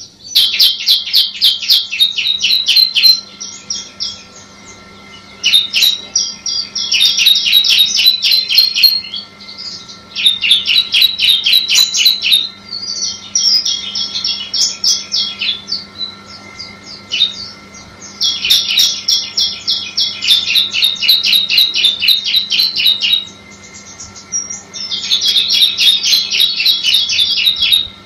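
Ciblek (bar-winged prinia) singing: bouts of rapid, sharp, high repeated notes, each lasting a few seconds, with short pauses between them.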